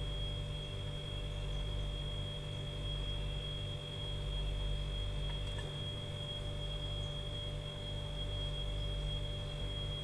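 Steady electrical hum with a high-pitched whine held over it.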